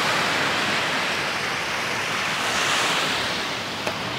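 Ocean surf washing onto a sandy beach, a steady rushing that swells briefly about two and a half seconds in, with some wind on the microphone.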